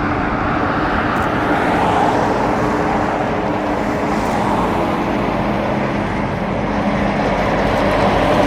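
Fixed-wing aircraft engines running as the plane flies past, a steady noise whose low hum slides lower in pitch partway through.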